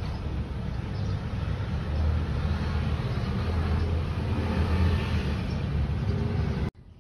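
Low, steady rumble of road traffic that swells in the middle as a vehicle goes by, then cuts off suddenly near the end.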